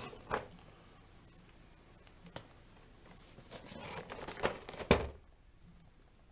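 Cardboard toy box with a plastic window being handled: rustling and knocks, a busier spell of rustling about three and a half seconds in, and the loudest thump just before five seconds as the box is set down on the carpet.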